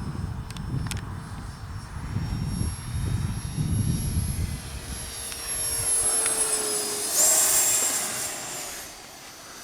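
Electric ducted fan of a Freewing Hawk T1 RC jet (70mm EDF on 6S) whining in flight. It grows loudest about seven seconds in as it passes close, then fades with its pitch dropping.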